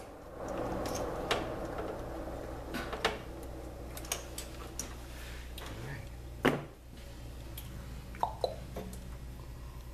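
Scattered small clicks and knocks of hands working wiring connectors and plastic parts inside an open espresso machine, the sharpest knock about six and a half seconds in, over a steady low hum.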